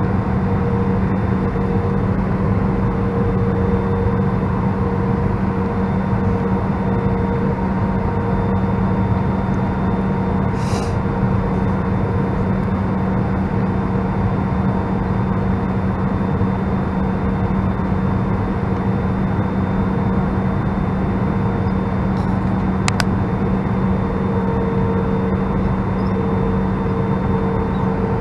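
Airbus A319 cabin noise on approach: a steady drone of the IAE V2500 engines and rushing airflow, with several constant humming tones. A brief soft hiss comes about ten seconds in, and a single sharp click comes later.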